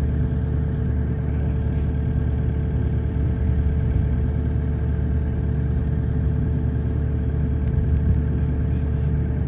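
Steady low machine hum with a few constant tones, unchanging throughout, with a few faint clicks about eight seconds in.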